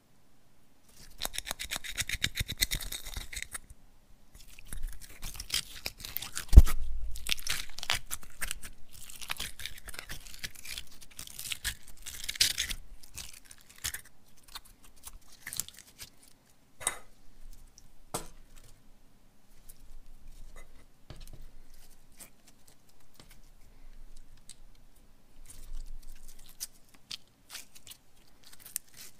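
A toy being handled and squeezed by hands: bursts of crinkling, crackling noise, with one sharp knock about six and a half seconds in, then scattered small clicks.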